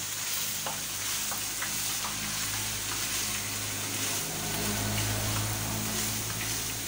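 Egg-roll filling of cabbage, chicken and chopped boiled egg sizzling in a non-stick wok while a spatula stirs and scrapes through it, with a few light spatula taps. A steady low hum runs underneath.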